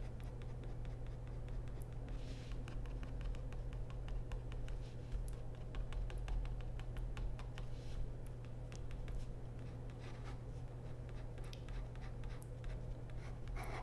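Ink pen scratching on paper in a quick run of short strokes, hatching dashes of brickwork: a rapid patter of small ticks that is densest in the middle.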